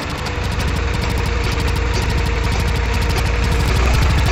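Eicher 480 tractor's diesel engine running hard as it pulls a stuck tipping trolley out of a muddy ditch, getting louder near the end.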